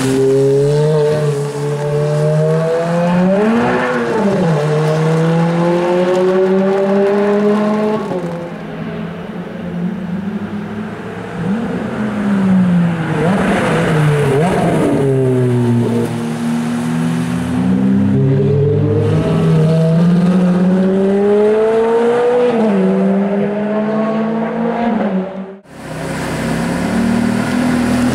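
Ferrari F430 Spider's V8 accelerating and passing by, its pitch climbing in steps with drops at the gear changes and swooping down as the car goes past, twice. Near the end, after a sudden cut, the engine runs low and steady, then rises.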